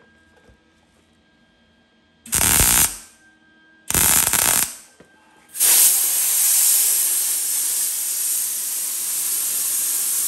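Compressed-air blow gun hissing against fresh tack welds on a steel quarter panel: two short blasts, then a steady blast, cooling the welds so the heat doesn't warp the panel.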